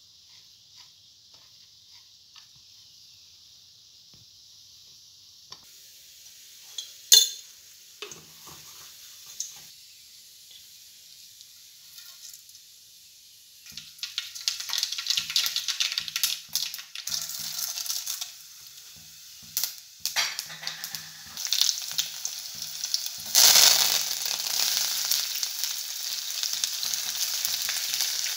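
Hot oil in an aluminium pan crackling and popping as seeds are spooned in, then a sudden louder surge of sizzling when sliced onions, dry red chillies and curry leaves go in, settling into steady frying. Before the frying, only faint noise and one sharp clack about seven seconds in.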